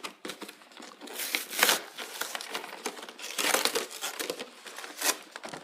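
Toy packaging crinkling and rustling in irregular handfuls as it is pulled open to get the toy whistle out.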